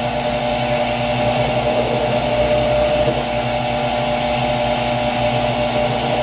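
Drill press running steadily, an even hum with a high whine.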